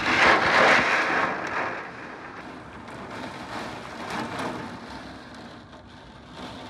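Heavy rain and gusting wind of a severe thunderstorm, a rushing noise that is loudest in the first second or so, then eases to a lower rush that swells and fades.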